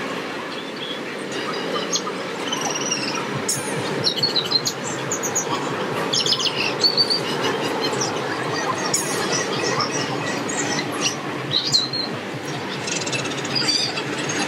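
Many small birds chirping over a steady background noise, possibly train or traffic.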